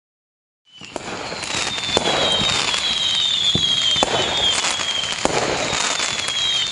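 Fireworks sound effect: a dense crackle of exploding fireworks with sharp bangs every second or so and high whistles that fall in pitch. It starts about a second in, fading up quickly from silence, as the timer's end signal.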